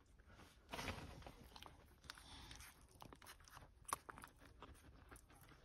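Faint wet clicking and smacking of two-week-old Lancashire Heeler puppies suckling at their mother, with a louder stretch about a second in.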